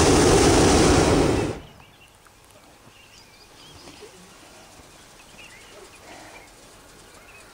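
Hot-air balloon propane burner firing in one loud, steady roar that cuts off about a second and a half in. Faint bird chirps follow.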